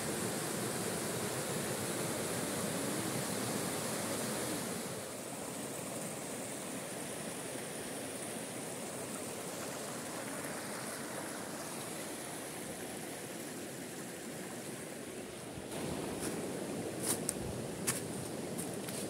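River water rushing over rocks in a shallow white-water cascade, a steady rush that drops to a softer flow about five seconds in. Near the end, a few sharp crackles of footsteps on dry fallen leaves.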